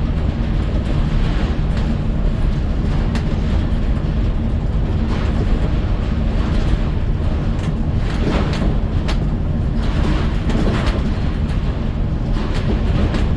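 A vehicle under way on the road: a steady, loud low rumble of engine and tyre noise, with scattered short rattles and clicks throughout.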